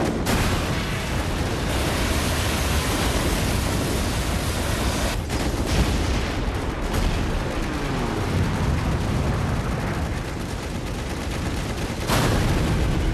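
Dense, continuous anti-aircraft gunfire with explosions, a battle sound effect mix. It gets suddenly louder about a second before the end.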